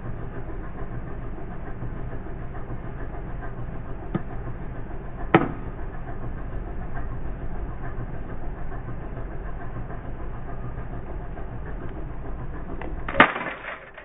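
A car engine runs with a steady low rumble while its tyre slowly presses down on a plastic CD. The disc cracks sharply about five seconds in, then snaps with a louder burst of crackling near the end as it breaks under the tyre, and the engine rumble cuts off just after.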